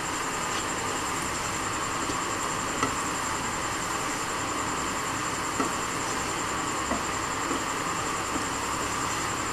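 A wooden spatula stirring thick pickle in a nonstick pan on an induction cooktop, with a few light knocks against the pan, over a steady hum and hiss with a faint high whine.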